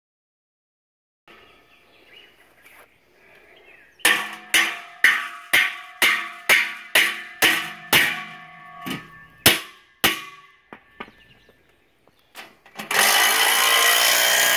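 Hammer blows on steel anchors and the galvanized steel base rail of a metal carport, anchoring it into a concrete slab: about a dozen sharp, ringing strikes at roughly two a second, then a few slower ones. Near the end a power drill starts boring steadily.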